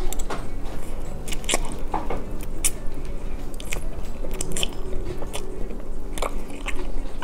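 Instant ramen noodles being slurped and chewed: short wet sucking slurps and chewing smacks at irregular moments.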